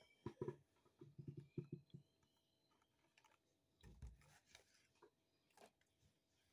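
Faint clicks and taps of a cardboard snack box being handled, with a soft low thump about four seconds in.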